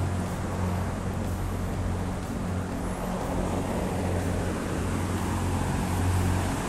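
A steady mechanical hum with a constant low-pitched drone under a noisy wash, swelling slightly near the end.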